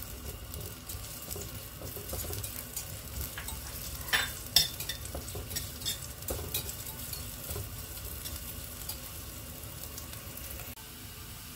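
Sliced shallots and garlic sizzling in hot oil in a pot, being fried until fragrant, while a metal spatula stirs them with scattered scrapes and taps against the pot. The stirring stops near the end, leaving the sizzle.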